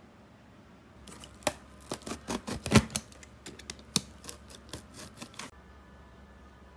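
Cardboard shipping box being opened by hand: a quick irregular run of snips, crackles and clicks from the packing tape and cardboard flaps, lasting about four seconds and then stopping.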